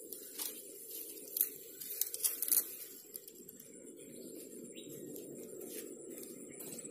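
Rustling and a cluster of short sharp clicks in the first few seconds, from handling the fishing rod and line and moving on the bank, over a steady faint hum and a thin high whine.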